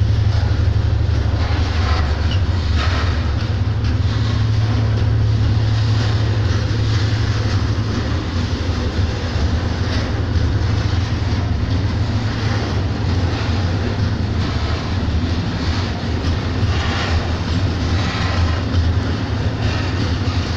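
Freight train of covered hopper wagons rolling past close by: a steady, loud, low rumble, with wheel clatter over the rail joints now and then.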